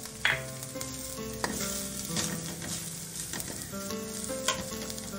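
Shredded chicken frying in a little oil in a karahi, with a light sizzle, while a metal ladle stirs it, scraping and knocking against the pan four or so times; the sharpest knock comes just after the start.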